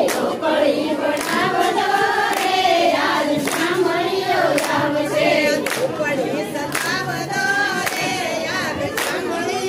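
A large group of women singing a song together in unison, clapping their hands in a steady beat about once a second.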